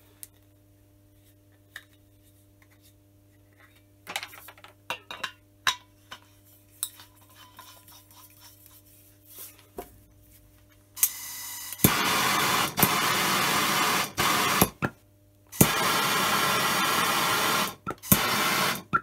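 Bernzomatic hand torch on a MAPP gas cylinder. For the first ten seconds or so there are only light handling clicks as the torch is fitted. Then a softer hiss of gas comes in, and the lit flame burns with a loud, steady hiss for about three seconds. It is shut off with a click and lit again for about two more, with a short burst near the end.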